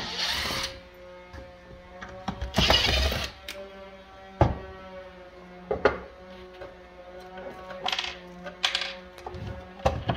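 Small metal cabinet hardware and screws rattling and jingling in a container, twice, the second time louder, followed by a few sharp wooden knocks as a drawer and its front are handled.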